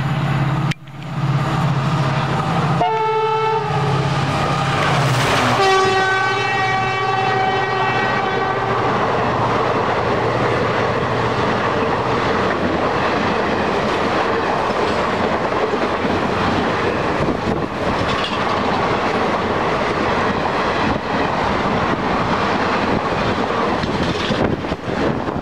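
WDP-4D diesel-electric locomotive (EMD two-stroke V16) running hard as it approaches, with a short horn blast about three seconds in and a long horn blast from about five seconds that sounds lower in pitch as the locomotive goes by. The coaches then pass close by with a steady rush and clickety-clack of wheels over rail joints.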